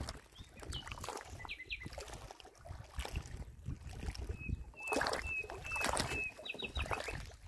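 Waterside ambience: a low rumble of wind on the microphone and water sloshing, with a small bird calling, a few short chirps, then a string of about six even notes and a quick trill near the end. A louder rush of noise about five seconds in.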